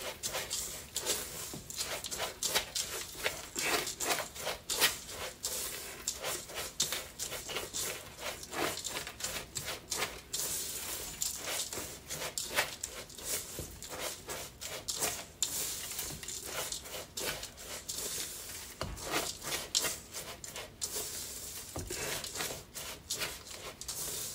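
Silicone spatula stirring buttery cookie crumbs in a stainless steel bowl: a run of quick scraping, rustling strokes against the metal as the crumb topping is mixed together.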